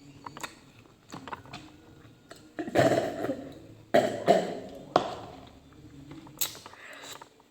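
A person coughing hard three times, about a second apart, starting a little under three seconds in. A few small clicks come before the coughs.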